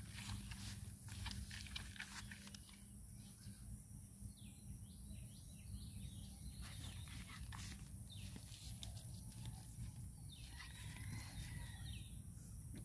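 Quiet outdoor background: a steady low rumble with light scuffs and clicks, and a few faint high chirps.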